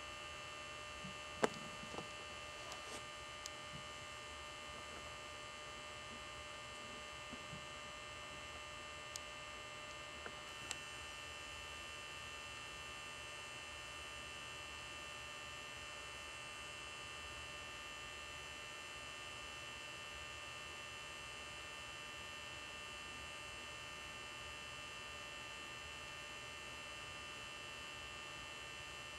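Steady electrical hum with a high whine, with a few faint clicks in the first ten seconds or so.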